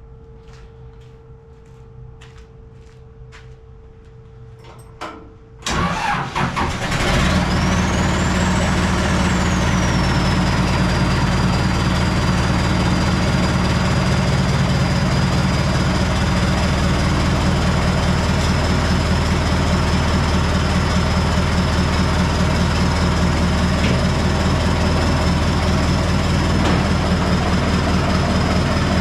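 Cummins diesel engine in a Case 430 skid steer starting about six seconds in, then running steadily at idle, with a high whine that climbs after the start and then settles to a steady pitch. Before it starts there is only a faint steady tone and a few light clicks.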